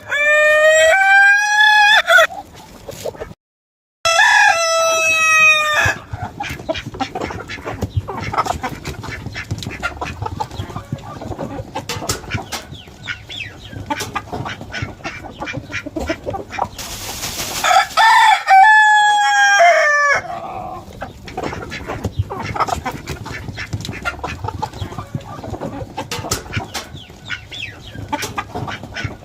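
Roosters crowing three times, each crow about two seconds long, over a flock of chickens clucking and calling throughout.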